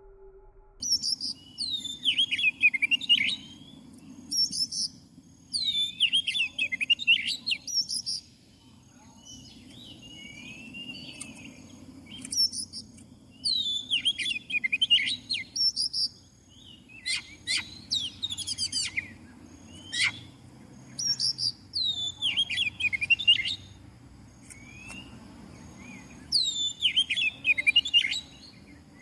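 Oriental magpie-robin (kacer) singing: loud phrases of rich whistles and chirps, repeated every few seconds, over a low steady hum.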